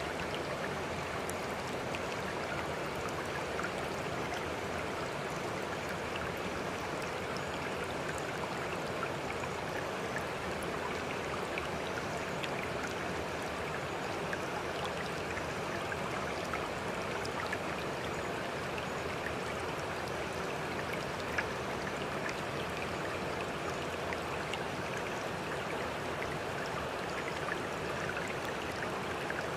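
Running water of a stream, a steady flowing sound with faint small splashes scattered through it.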